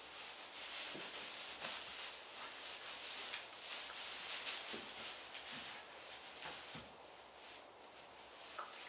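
Rustling and shuffling in deep straw bedding as a Clydesdale foal's hooves and a person's feet move through it, with a few soft thuds.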